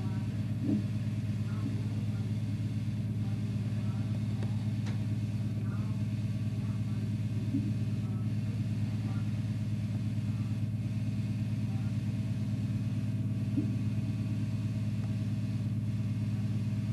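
Farm tractor's engine idling steadily with a low, even drone.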